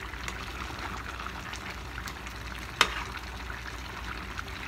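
Chicken and potato stew in tomato sauce simmering and sizzling in a metal pan on a gas burner while a metal spoon stirs it, with small scraping ticks and one sharp clink of spoon on pan a little before three seconds in.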